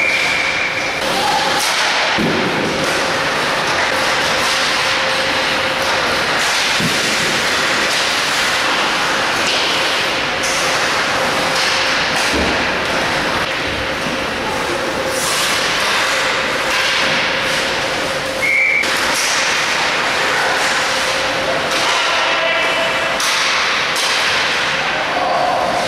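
Ice hockey practice: a steady wash of skates scraping the ice, broken by knocks and thuds of sticks and pucks. A short high whistle blast sounds right at the start and again about three-quarters of the way through.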